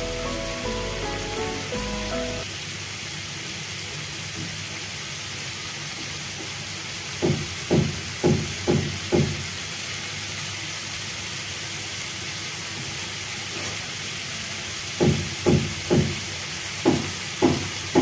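Onions and tomatoes sizzling steadily in a frying pan, after a couple of seconds of music at the start. About five short, dull, loud pops come near the middle and about eight near the end, as pasta sauce and mayonnaise are squeezed into the pan.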